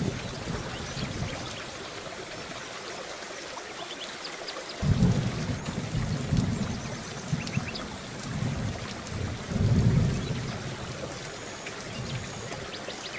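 Steady rain hissing, with low thunder rumbling in suddenly about five seconds in and swelling several times, loudest near the ten-second mark, before it dies back to the rain alone.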